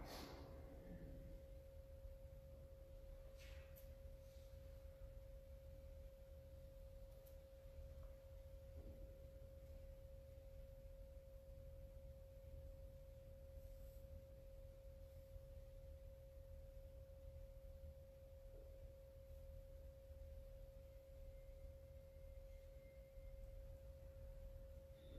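Near silence: room tone with a faint, steady, single pure tone and a low rumble, and a faint tick about three and a half seconds in.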